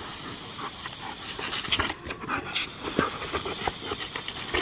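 A German Shepherd panting and snapping at the jet from a garden hose, with quick irregular clicks and splashes starting about a second in. The water jet hisses steadily underneath.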